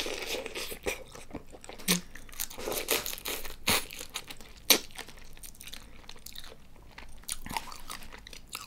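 Biting and chewing a soy-sauce-marinated tiger prawn close to the microphone, with sharp crunches and crackles, the loudest about two, four and five seconds in.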